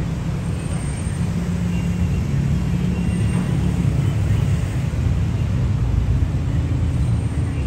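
Steady low rumble of city road traffic, growing slightly louder after the first couple of seconds.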